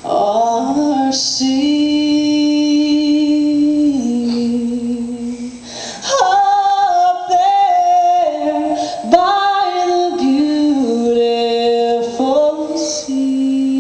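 A woman singing a slow gospel hymn, holding long notes.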